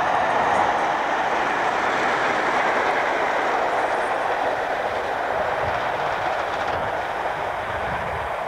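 British Rail diesel-hauled train passing close by at speed: a steady, loud rumble of engine and wheels on the rails that slowly fades over the last couple of seconds as the train draws away.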